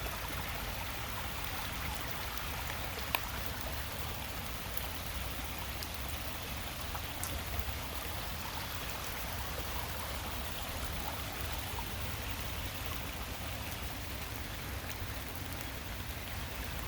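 Steady rushing of a rain-swollen creek running high, mixed with falling rain. One sharp tick about three seconds in.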